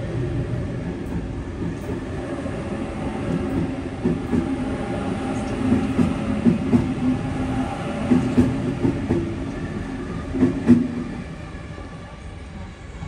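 Series 2 Waratah suburban electric train pulling out of the platform, its wheels clacking over rail joints in a run of knocks, then fading as it moves off down the line near the end.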